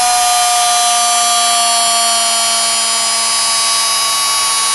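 Electric motor of a Benner Nawman DBR-25WH portable rebar bender running under load as it bends a #8 rebar. It gives a steady high whine whose pitch sags slightly as the bar is forced round the rollers.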